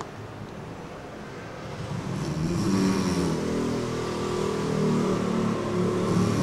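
A sleeping person snoring loudly: a quieter breath, then from about two seconds in a long, rough, low snore that carries on.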